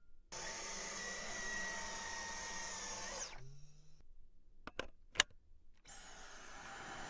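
Vacuum cleaner motor running with a steady high whine over a rush of air. It cuts off about three seconds in, a few sharp clicks follow, and it starts up again near the end.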